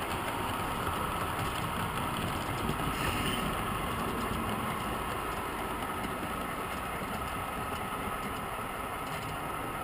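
Steady, engine-like hum and rumble from the running HO-scale model railroad layout as a model freight train rolls along a far track.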